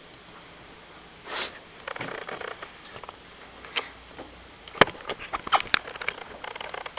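A single sniff about a second and a half in, then light rustling and a run of sharp clicks and knocks from equipment being handled close to the microphone, the two loudest about five and six seconds in.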